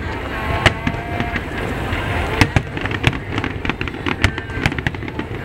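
Aerial fireworks shells bursting: a string of irregular sharp bangs and crackles, coming thickest in the second half, over a murmur of crowd voices.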